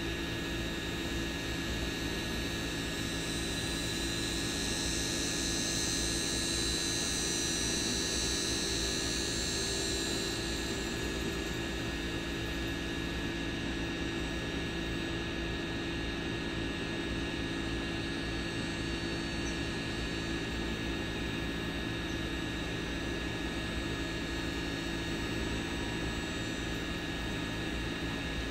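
Camera drone's motors and propellers whirring steadily: a hiss with several steady humming tones, the high part of the hiss growing brighter from about four to eleven seconds in.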